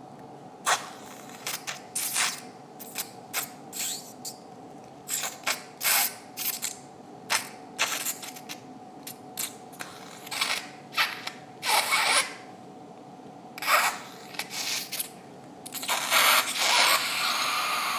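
Surgical handling noises: irregular short rustles and scrapes as steel forceps and gauze sponges are worked in the open nasal cavity. A longer, rougher stretch comes near the end, over a faint steady tone.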